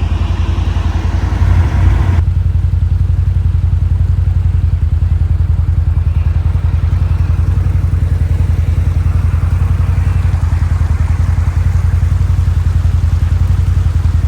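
CFMOTO ATV engine running steadily with an even low pulse.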